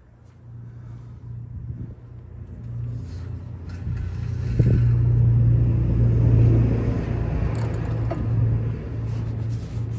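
A low, steady mechanical rumble, like a vehicle running, that builds over the first five seconds or so and then holds, with a short knock about four and a half seconds in.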